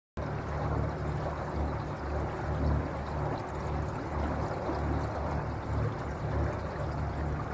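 Water rushing and splashing along the hull of an electric boat under way, with a steady low rumble underneath and no engine noise.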